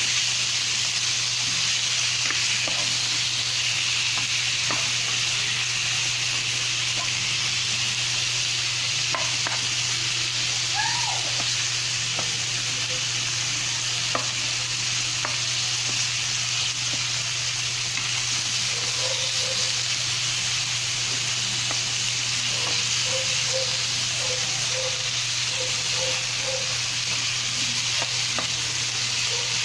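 Raw chicken pieces sizzling steadily in hot oil in a nonstick frying pan with onion, garlic and ginger, stirred now and then with a spatula that scrapes and taps the pan. The chicken is being browned. A steady low hum runs underneath.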